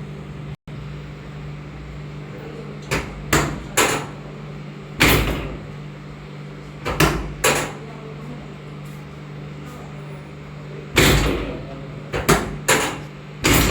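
About a dozen sharp thumps in irregular groups of one to four during a chiropractic full-body adjustment, hands striking and working the patient's body, over a steady electrical hum.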